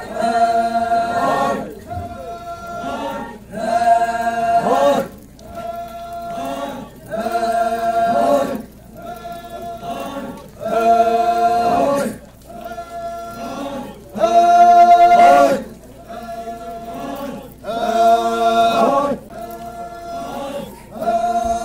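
A group of voices chanting a traditional Naga folk song together, in short repeated phrases about every three and a half seconds, louder phrases alternating with softer ones.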